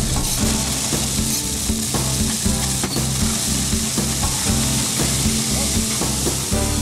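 Steady gritty hiss of crushed-rock track ballast sliding from a small dump bed and being raked, over background music with a steady beat.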